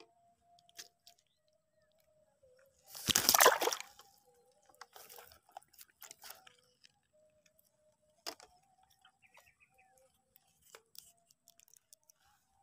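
Water splashing hard for about a second as a freshly caught tilapia goes into a bucket of water, followed by a few light clicks and knocks.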